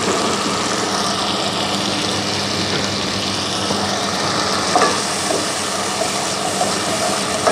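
Sauce sizzling and bubbling in a pan on the stove, then a black spatula stirring and scraping through it, with a clack against the pan about five seconds in.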